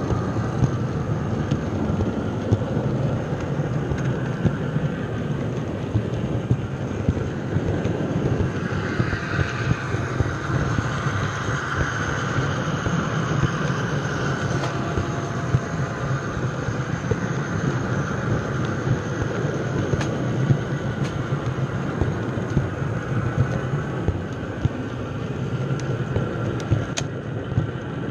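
Model train running on its track, heard from a camera car riding on the train: a steady rumble of wheels on rail with frequent short clicks, louder and brighter for a stretch around the middle.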